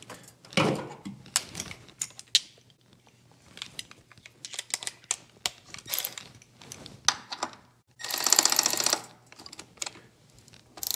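Light clicks and knocks of metal brake lines and a steel bracket being handled and fitted, then about eight seconds in a cordless ratchet runs for about a second, driving a fastener.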